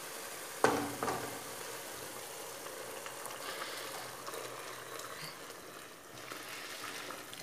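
Chicken in tomato sauce sizzling in a pot on a gas hob while boiling water is poured in from a small saucepan: a steady hiss, with a sharp clink a little over half a second in and a smaller one about a second in.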